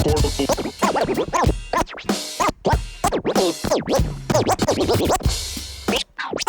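Hip-hop record scratching: quick back-and-forth pitch sweeps, chopped on and off many times, over a sparse beat with bass coming in and out.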